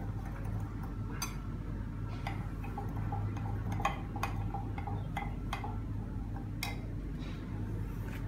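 A glass stirring rod clinking against the side of a glass beaker in irregular light taps as sodium acetate and water are stirred, over a steady low hum.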